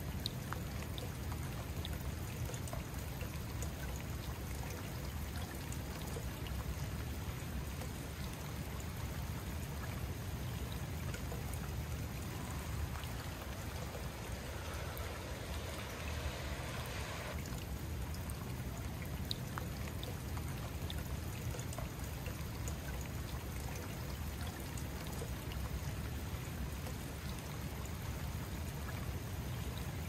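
Koi-pond fountain water pouring steadily over a moss-covered stone rim in a continuous rush. A little past the middle, the water sound turns brighter for a few seconds and then drops back suddenly.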